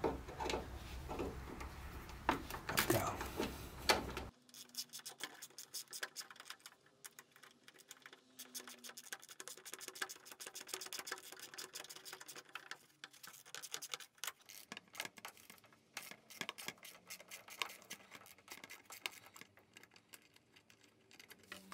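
Scattered light clicks and taps of hands and a small hand tool working a plastic splash shield loose under a car's wheel arch, busier in the first few seconds.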